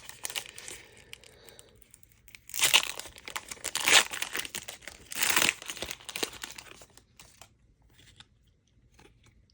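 Wrapper of a pack of baseball trading cards crinkling and being torn open, with three loud rips in the middle, then a few small rustles and clicks as the cards are handled.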